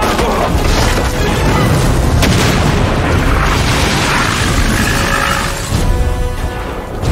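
Film sound effect of a large fiery explosion: a long rushing blast that swells about two seconds in and dies away near the end. Film music plays under it.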